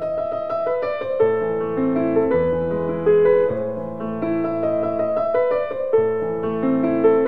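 Slow piano music: held chords and melody notes that change about once a second.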